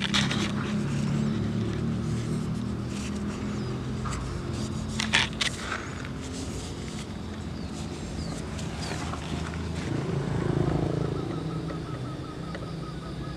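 Outdoor background noise: a low steady hum with a few sharp knocks, one at the start and a pair about five seconds in. A faint high-pitched tone starts pulsing several times a second near the end.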